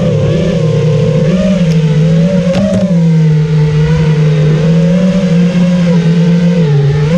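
FPV racing quadcopter's T-Motor F60 Pro V2 2700kv brushless motors and propellers whining in flight, the pitch wavering a little with throttle changes, heard from the camera on board.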